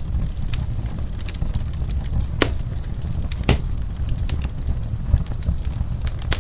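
Wood fire crackling: scattered sharp pops and snaps over a steady low rumble, with two louder pops about two and a half and three and a half seconds in.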